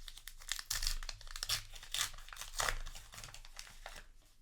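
Foil booster pack wrapper crinkling and tearing as a trading card pack is opened, a busy run of crackling rustles that dies down near the end.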